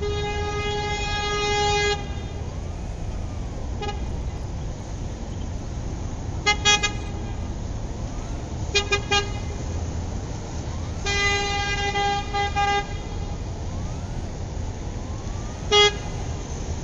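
A vehicle horn honking again and again over steady traffic and engine noise: one long blast at the start, two quick sets of three short toots around the middle, another long blast broken by short gaps, and a single short toot near the end. The horn keeps the same pitch throughout.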